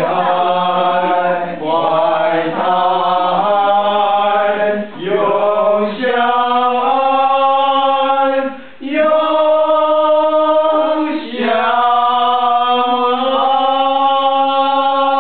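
A choir singing slow, long-held notes, each chord sustained for a couple of seconds with short breaks between them.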